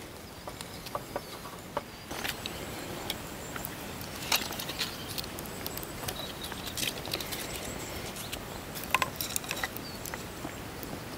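A kindling fire of wood shavings and split softwood sticks crackling and snapping as it catches, with sharp irregular pops over a soft steady hiss and a few light knocks of sticks being laid on.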